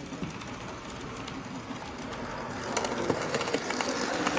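Model A4 Pacific locomotive with Pullman coaches running along model railway track, its wheels clicking over the rail joints. The sound grows louder from a little under three seconds in as the train draws close.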